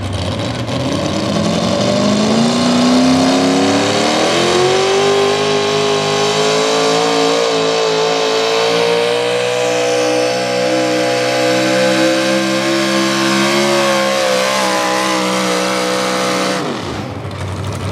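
Modified small-block V8 of a 4x4 pulling truck at full throttle while dragging a pulling sled. The engine revs up over the first few seconds, holds a high, steady pitch that climbs slightly, then drops away suddenly near the end.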